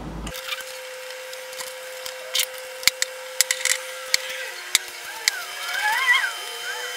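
Light metallic clicks and taps of small bolts, a socket and a nut driver being picked up and set against a carburetor's metering block, over a faint steady hum. A faint wavering whistle-like sound rises and falls about five to six seconds in.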